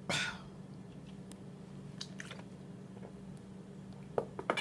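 Soft, wet chewing and mouth sounds from a person eating, with a few small clicks, over a steady low hum.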